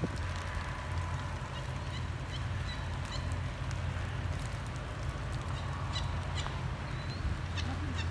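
Faint, scattered short bird calls over a steady low rumble.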